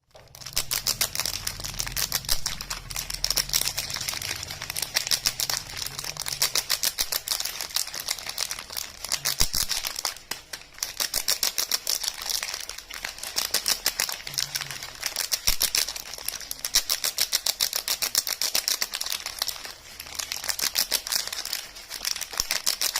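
Soap packaging handled close to the microphone: a dense, rapid run of small crinkles and taps that carries on throughout, easing off briefly twice.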